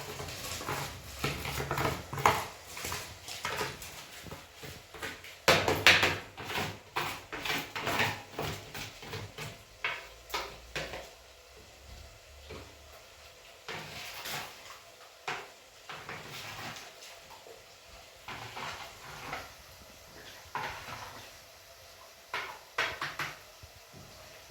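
Irregular knocks and clatters of objects being handled, dense through the first half and sparser with scattered bursts later.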